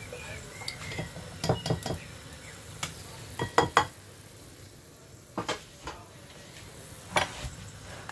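Metal spoon knocking and scraping against a metal saucepan while stirring, in about ten short, irregular clinks in small clusters, over melting cow's butter.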